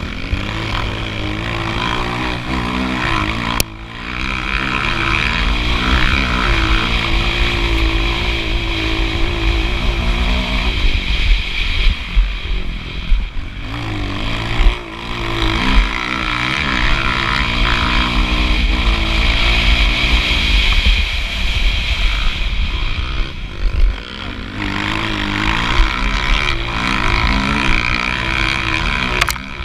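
Motocross bike engine heard from on board, revving hard and rising and falling in pitch through the gears, dropping off briefly several times as the throttle is closed.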